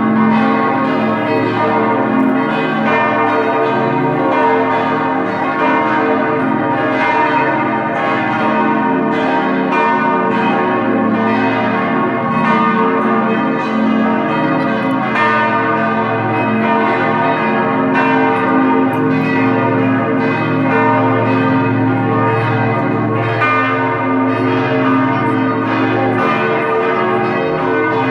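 Church bells pealing, several bells struck over and over so that their ringing tones overlap in a dense, continuous wash.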